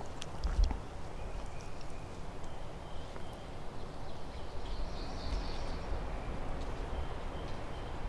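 Wind rumbling on the microphone in gusts, strongest about half a second in, with a few faint, short bird calls above it.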